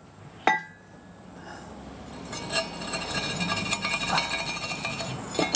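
Steel post vise parts clinking and rattling against each other as the fitted parts are taken apart, the metal ringing after each knock. One sharp clink about half a second in, then a steady run of clinks over the last three seconds.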